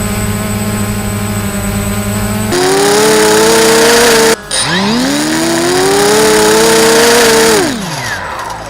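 DJI Phantom quadcopter's motors and propellers whining steadily, stepping up in pitch a few seconds in. After a short break the pitch rises from low to a high steady whine, then winds down near the end.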